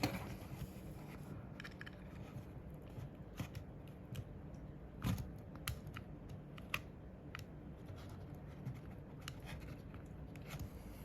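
Scattered small clicks and ticks of hands working on a computer mouse's plastic parts, the loudest about five seconds in, over a faint steady hum.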